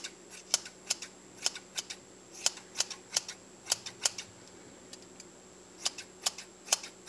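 Scissors snipping through yarn to trim a pom-pom: quick sharp snips, about three a second, with a pause of over a second midway.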